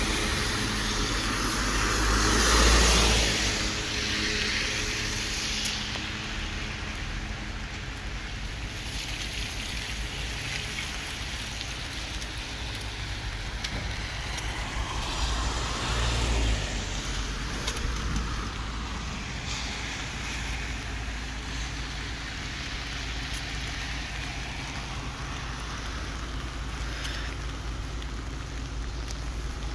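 Cars passing on a rain-wet street with tyres hissing, over a steady background of traffic and rain. The loudest passes swell and fade about three seconds in and again around sixteen seconds in.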